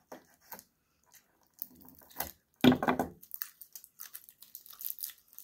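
Plastic candy packaging crinkling and clicking in the hands as someone struggles to open a Toxic Waste sour candy container, with one louder sound about halfway through.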